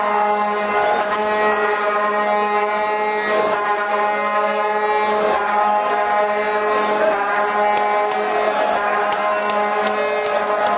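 A steady droning tone held at one pitch without a break, over crowd noise with a few faint knocks.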